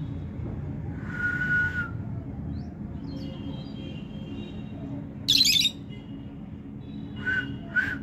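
Rosy-faced (peach-faced) lovebirds calling: a shrill call about a second in, a loud harsh screech past the middle, and two short chirps near the end. A steady low hum runs underneath.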